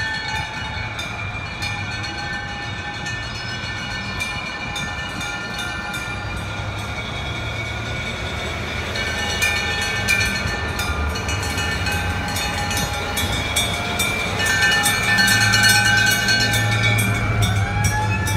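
Fire engine sirens and bells sounding together: several held siren tones over a steady clanging of bells, with one siren rising in pitch, holding and falling away near the end.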